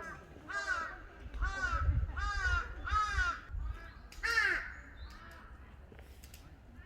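Crows cawing: about eight calls in a quick run over the first four and a half seconds, then stopping.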